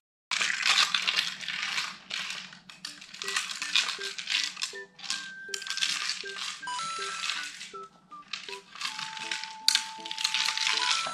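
Dry treats rattling and clattering inside a plastic treat-dispensing ball as a dog paws and noses it across carpet, in irregular bursts. Light background music plays underneath.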